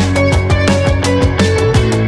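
Background music with a fast, steady drum beat, a heavy bass line and held synth-like notes.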